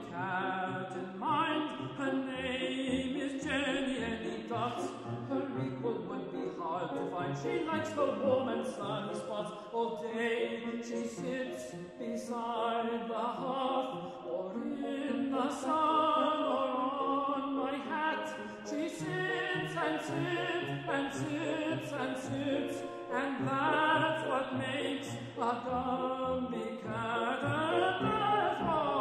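Classical art song: a tenor singing in operatic style with piano accompaniment.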